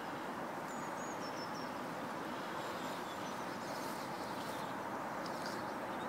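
Steady open-air background noise with faint, short, high bird chirps now and then.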